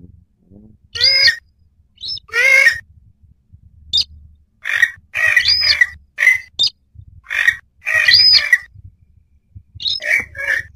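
Bird-lure recording of a purple swamphen duetting with a rail: a dozen or so loud, harsh squawking calls in quick succession, some with a short high note arching over the top.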